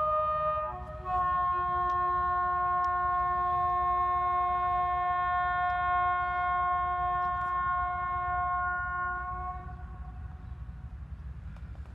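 Locomotive air horn sounding: the end of one blast, then after a brief gap a long steady chord of about eight seconds that fades out near the end. A low rumble of the train running on the rails lies beneath.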